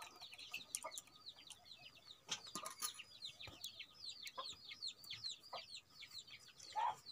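Chicks peeping steadily, a stream of high, quick downward-sliding calls several times a second. There are a few light clinks of steel utensils about two to three seconds in, and a sip from a steel cup near the end.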